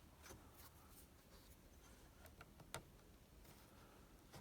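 Near silence with a few faint clicks and one sharper click a little under three seconds in: a jumper wire being fitted into the fuel pump relay socket.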